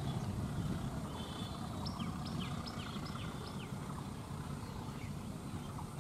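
Steady low rumble of a local passenger train's coaches rolling away along the track. About two seconds in, a bird gives a quick run of five or six high, falling chirps.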